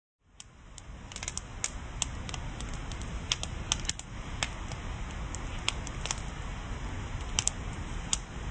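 Irregular sharp crackling clicks and pops, several a second, over a steady low rumble, fading in at the start.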